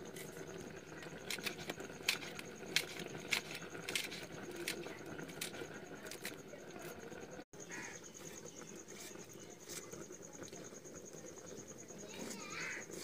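Knife cutting through a bunch of fresh leafy greens held in the hand over a steel plate, with a run of sharp clicks and snips as the blade goes through the stalks.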